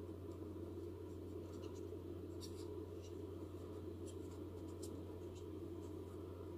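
Fingers handling a hard plastic model car body shell, with faint light rubbing and a few small scattered ticks of plastic, over a steady low hum.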